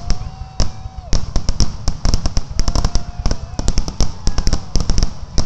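Fireworks finale: a dense, rapid barrage of aerial shell bangs and cracks, several a second, with a few held pitched tones over them.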